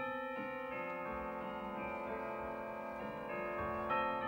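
Background piano music, slow and gentle, with held notes changing every half second or so.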